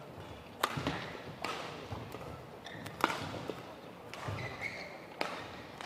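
Badminton rally: racket strings strike a shuttlecock several times, one sharp crack every one to two seconds, echoing in the hall, with short sneaker squeaks on the court floor between the hits.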